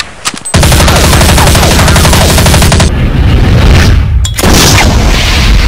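Rapid automatic gunfire, a long run of closely spaced shots that starts about half a second in. After a brief break just after four seconds, heavy firing noise carries on.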